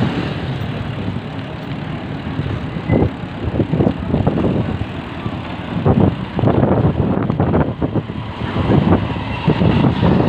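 Motorcycle running along at low speed, with wind buffeting the microphone in irregular gusts from about three seconds in.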